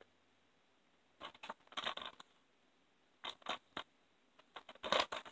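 Faint handling noise: a few short scrapes and taps of plastic DVD cases being handled, in small clusters with pauses between, the loudest near the end.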